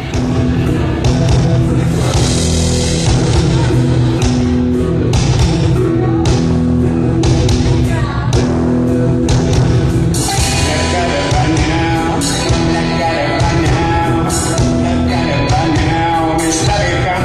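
Live reggae-rock band playing amplified electric guitar, bass guitar and drums with a steady beat; more melodic lines come in about ten seconds in.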